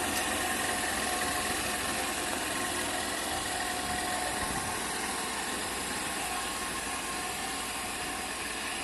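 Honda Unicorn 160 BS6 motorcycle's single-cylinder four-stroke engine idling steadily.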